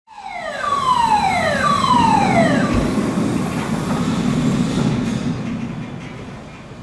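A B&M wing coaster train running along its steel track with a steady rumble. Three falling whines come in quick succession over the first two seconds or so.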